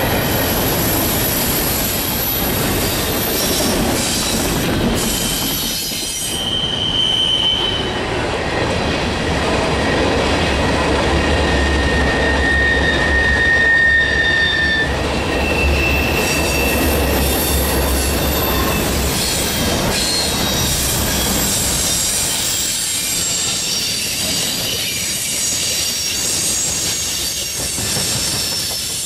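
Freight train of double-stack container cars, gondolas and boxcars rolling past. Its steel wheels make a steady rumble on the rails, with brief high-pitched wheel squeals now and then.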